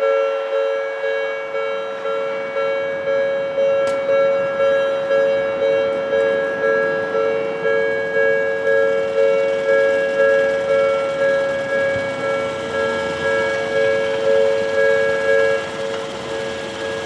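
Japanese level-crossing warning bell ringing its electronic two-tone 'kan-kan' alarm, about one and a half strokes a second, over the running noise of a train. The bell stops about a second before the end, leaving the train noise.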